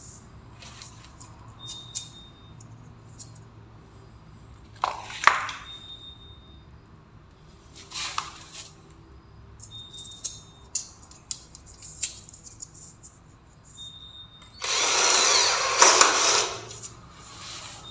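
Cordless drill-driver running for about two seconds near the end, driving a screw through an aluminium LED strip channel into the wooden stair tread. Before it come a few short rattles and sharp clicks as the channel is handled and knocked into place.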